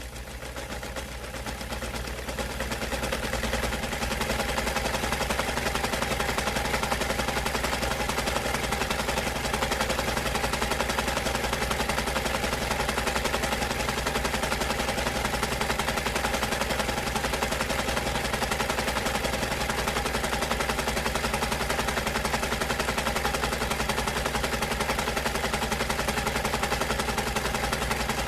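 Electric sewing machine stitching continuously, its needle mechanism making a fast, even rattle over a steady motor hum. It builds up to speed over the first few seconds, then runs steadily.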